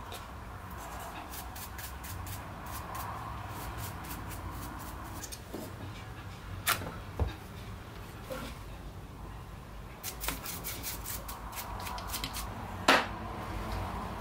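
Parts of a Bosch GWS 9-125 S angle grinder being handled and fitted together: runs of light plastic and metal clicks and rattles, with three sharp knocks, the loudest a little before the end.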